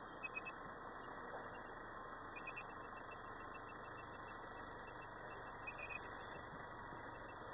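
Steady, quiet engine and road noise of a Subaru XV crawling along a dirt track, heard from inside the car. A faint, rapid high-pitched peeping repeats several times a second through most of it, louder in a few short clusters.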